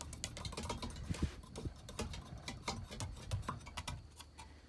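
Rapid, irregular clicks and taps of small hard parts being handled, over a low steady hum.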